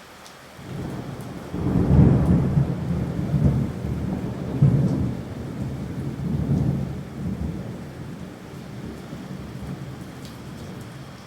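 Rolling thunder over steady rain: a deep rumble builds about a second in, swells several times, then dies away, leaving the rain hiss.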